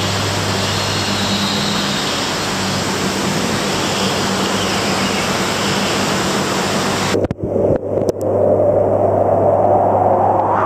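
Steady rush of water flowing through coral holding tanks, with a steady low pump hum. It drops out briefly about seven seconds in and comes back as a lower-pitched rush.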